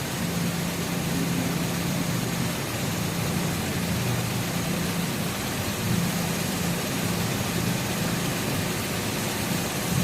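Nissan X-Trail engine idling steadily, a constant low hum.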